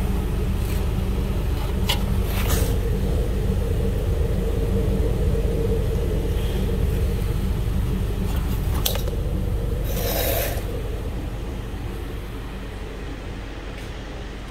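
2008 Subaru Legacy Outback's 2.5-litre flat-four engine idling steadily, heard at the tailpipe with a shop exhaust extraction hose clamped over it. A few short knocks and scrapes come as the hose is handled, and the engine grows quieter about ten seconds in.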